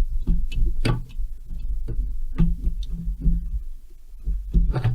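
Scattered light clicks and knocks at irregular intervals as hands and tools handle the chainsaw's parts on the workbench, over a steady low hum.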